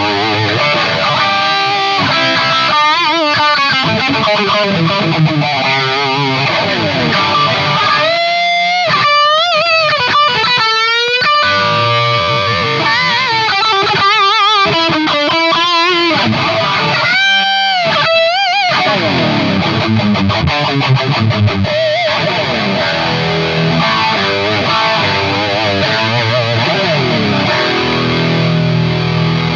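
Electric guitar played through an M-Vave Mini-Amp preamp pedal into a Cuvave Cube Baby amp, with chords and riffs. In the middle come single-note lead lines with wide string bends and vibrato.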